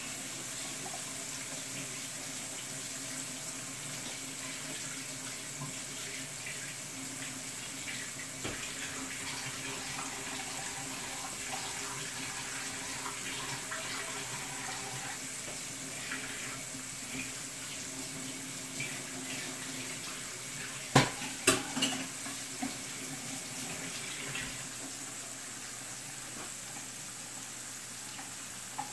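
Flour-coated butterfish pieces shallow-frying in oil in a frying pan: a steady sizzle with light crackling, and a few sharp clicks about two-thirds of the way through.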